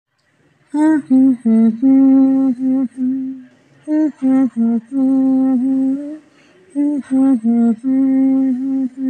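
A short wordless hummed tune, the same phrase of a few held notes repeated three times with brief pauses between.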